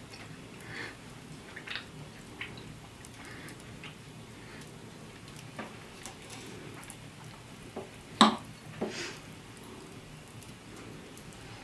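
Wood fire crackling in an open hearth, with a fork working at pie on a metal plate; two sharp clinks about eight seconds in, the first the loudest.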